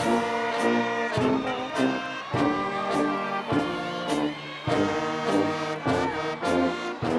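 Music led by brass instruments such as trombone and trumpet, with sustained chords and a steady beat.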